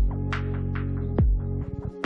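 Background electronic music: a sustained synth chord over deep, falling kick-drum hits and quick ticking percussion, with a brief drop-out near the end.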